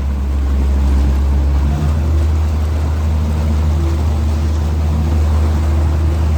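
Motorboat engine running steadily under way, a deep rumble with a rush of water and hiss over it.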